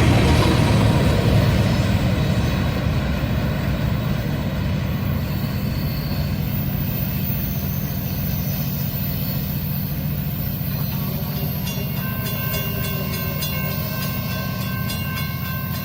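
Freight train cars rolling past on the track, a steady rumble that eases gradually over the first few seconds and then holds.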